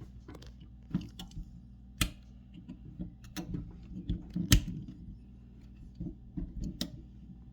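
Scattered light clicks and knocks of a knife and hands working old O-rings off a faucet spout, with a sharper knock about two seconds in and another about four and a half seconds in.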